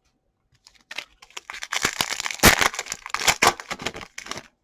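A trading-card pack wrapper being torn open and crinkled by hand: a run of dense crackling that builds about a second in, with a sharp crack in the middle, and dies away near the end.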